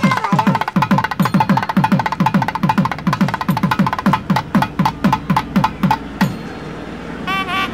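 Percussion music: a fast, even run of drum strokes, about five a second, each stroke dropping in pitch, with sharp high clicks over them. The drumming stops about six seconds in, and near the end a reed-like wind instrument starts a wavering melody.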